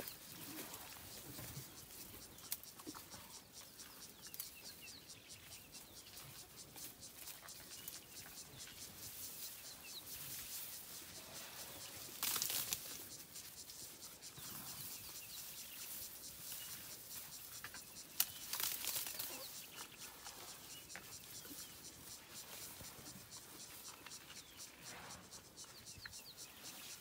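Young elephant foraging in long grass: rustling and crunching as it pulls up and chews vegetation, with two louder bursts about twelve and eighteen seconds in.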